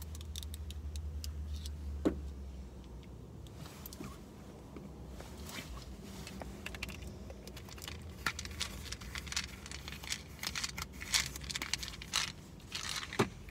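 Small objects being handled: a string of light clicks, rattles and crinkles that grows busier in the second half, with a low hum in the first couple of seconds.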